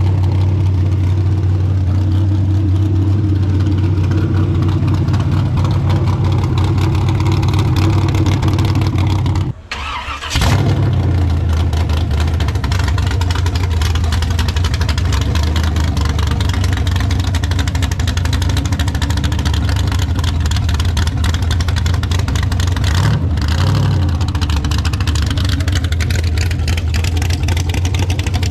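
A '42 pickup's engine running through custom stainless steel headers, a steady low exhaust note. About ten seconds in the sound drops out briefly, then comes back in with a sudden loud burst.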